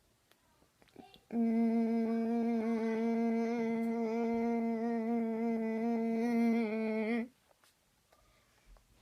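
A person's voice holding one steady hummed note for about six seconds, starting about a second in and cutting off sharply; its upper tones waver slightly. It is the 'weird noise' vocal trick, made by sounding the note while tapping on the throat just above the Adam's apple.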